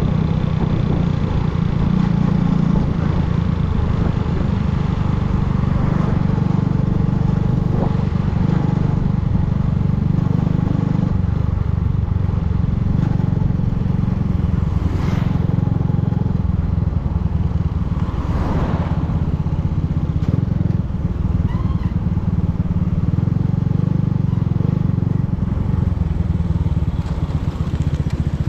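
Motorcycle engine running steadily during a ride, with a constant low drone.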